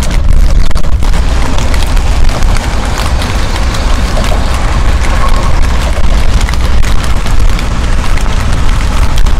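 Wind buffeting the camera's microphone: a loud, continuous low rumble with rushing noise.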